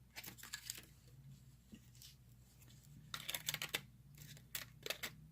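Plastic blister packaging crinkling and being cut with scissors, in a few short bursts of faint clicks and crackles.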